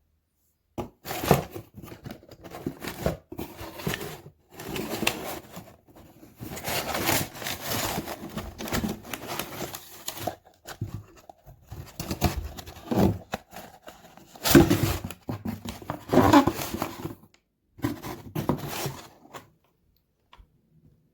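Packaging being torn open and crinkled by hand: irregular bursts of tearing and rustling with short pauses, stopping a little before the end.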